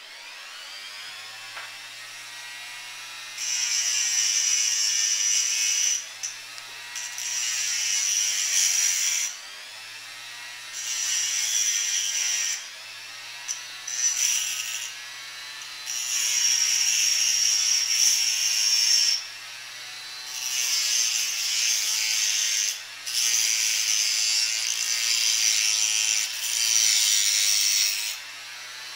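Flexible-shaft handpiece of an INGCO mini die grinder running at high speed, its motor whine rising in the first second. A small cut-off wheel grinds into a glass light bulb in about eight passes of one to three seconds each, a loud high-pitched grinding over the steady whine.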